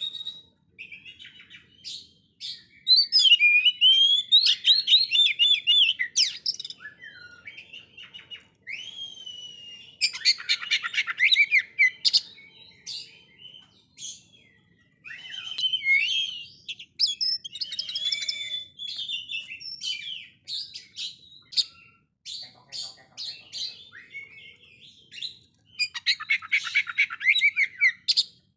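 Caged oriental magpie-robin singing a loud, varied song. Whistled slurs alternate with fast rattling, chattering trills, in phrases a few seconds apart with short pauses between.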